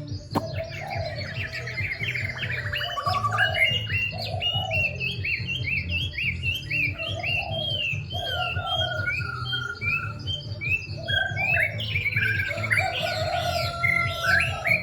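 Kept songbird singing a long, fast run of short, sharply pitched notes, each rising and falling, with lower notes coming in between.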